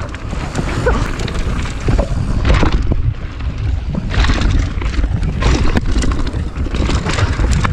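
Wind buffeting a chest-mounted camera's microphone as a mountain bike descends a dirt trail at speed, a steady low rumble of air and tyres. Frequent sharp knocks and rattles of the bike over rough ground.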